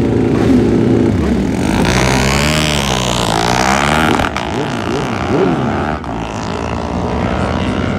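Racing motorcycle engines revving, with a steady engine note for about the first second, then the pitch sweeping down and up several times.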